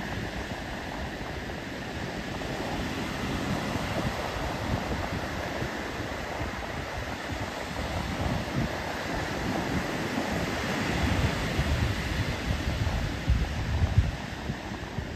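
Two-to-three-foot surf breaking and washing up a sandy beach in a steady rush, with wind buffeting the microphone that gusts harder near the end.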